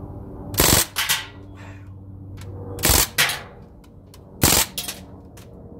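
Crosman full-auto CO2 BB rifle firing three shots about two seconds apart. Each pop is followed a moment later by a fainter smack of the BBs striking steel targets.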